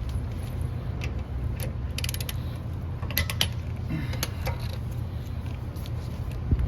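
Metal hand tools clicking and ratcheting in short runs while a wheel is changed over to a spare tire, with a quick run of clicks about two seconds in and more about three seconds in, over a steady low rumble.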